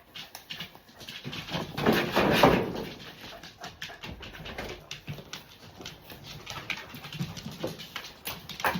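A dog making sounds amid short clicks and rustling, loudest for about a second around two seconds in.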